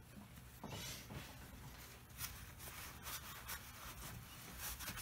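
Faint rubbing of a wad of paper towel over a wooden tabletop in short wiping strokes, more frequent from about two seconds in, cleaning up wood glue squeezed out around a freshly clamped butterfly key.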